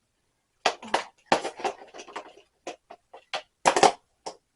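Tools and toolbox parts clattering and knocking as they are handled and set into place: a run of irregular sharp knocks and rattles, with a loud cluster near the end.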